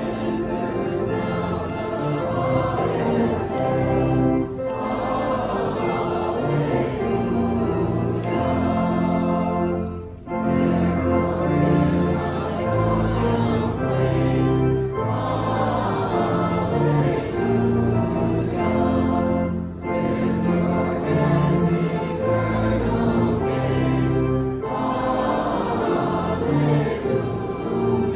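Choir singing a hymn in sustained chords over steady low notes, in phrases of about five seconds, each ending in a brief breath pause.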